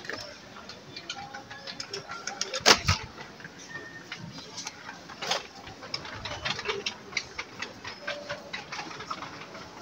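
Supermarket background sounds: irregular clicking and clattering, with a sharp knock nearly three seconds in and another a little after five seconds.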